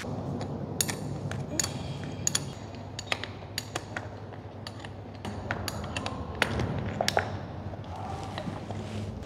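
A steel spanner clinking against the bolts and body of a motorcycle's front brake caliper as it is loosened. The clinks are sharp, irregular and ring briefly, with the loudest cluster about two-thirds of the way through, over a steady low hum.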